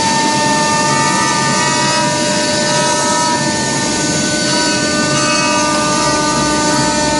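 Multi-spindle CNC router carving wood, its spindles giving a steady whine of several high tones over the noise of the cutting.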